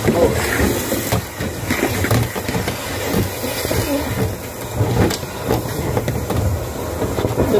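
Steady rushing and rumbling of a carpet-cleaning extraction machine's suction, with the ribbed vacuum hose rubbing and knocking as it is pulled in hand over hand.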